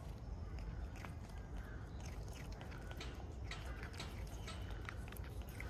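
A cat licking a lickable paste treat from a squeeze tube: quick, irregular, wet tongue clicks and smacks, faint over a low steady background rumble.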